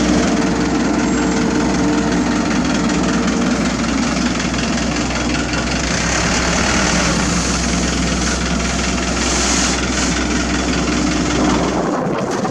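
Heavy diesel paving machinery running steadily at a close, loud level, with a constant engine hum under a dense mechanical clatter. The low hum drops out abruptly near the end.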